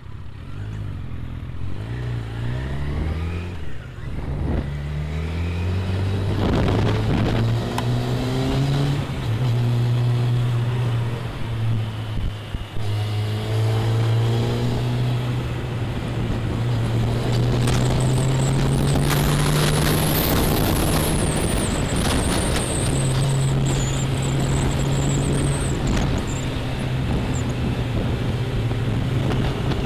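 Motorcycle engine pulling away and accelerating, its pitch climbing in steps through the first gears over the first few seconds. It then runs steadily at riding speed, with a few dips and rises in pitch as it shifts and eases off.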